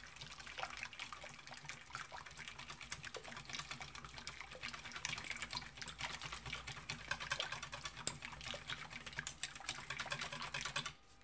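Wire balloon whisk clicking and rattling rapidly against a stainless steel bowl, beating white chocolate into hot syrup; the clicking stops just before the end.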